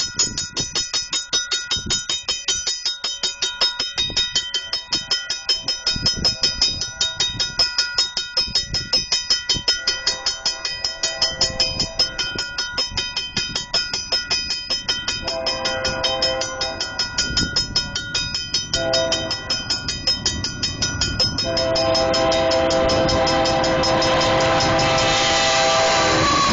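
Grade-crossing bell ringing rapidly and steadily at a crossing, while an approaching Union Pacific locomotive's multi-note air horn sounds its crossing signal: a long blast about halfway through, a short one a couple of seconds later, then a long held blast that grows loudest near the end.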